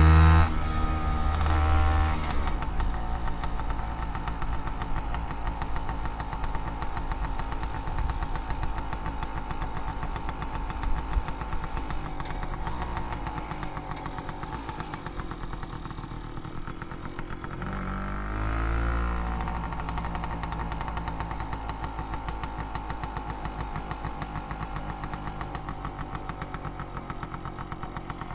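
Vespa PX 200 scooter's two-stroke single-cylinder engine, breathing through an old exhaust. It drops from a rev to idle in the first couple of seconds and settles into a steady, fast-pulsing idle. About 18 seconds in it is blipped once briefly, then returns to idle.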